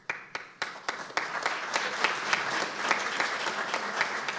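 Audience applauding: a few scattered claps at first, filling out within about a second into steady, dense applause.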